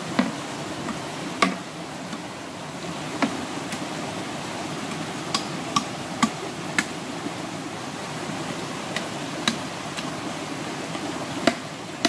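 Sharp knocks of a blade chopping and cutting a section of green bamboo, about a dozen strikes at uneven intervals, over the steady rush of a forest stream.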